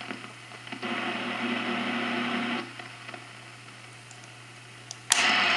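Shortwave receiver's speaker hissing with band noise, with a faint steady tone for a couple of seconds near the start. The noise then drops lower, and about five seconds in a sharp click is followed by a much louder hiss.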